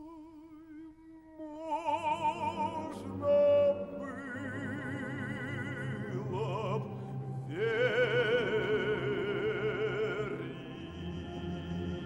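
Operatic tenor voice singing a song with orchestral accompaniment, the notes sung with wide vibrato and one long held note. Near the end the voice drops out and the orchestra holds a sustained chord.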